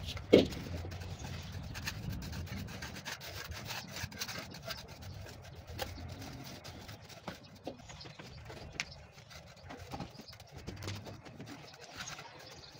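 Steel trowels scraping and raking through a sand-and-cement mortar bed, with scattered small clicks of grit and stones. One sharp knock about half a second in is the loudest sound.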